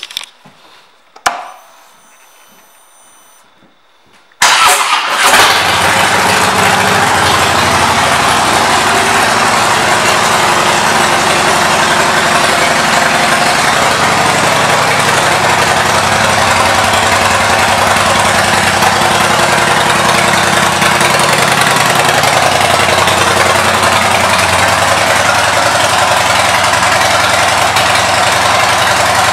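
2016 Harley-Davidson Street Bob's Twin Cam 103 V-twin with Vance & Hines pipes: a click, then the engine fires about four and a half seconds in and idles steadily.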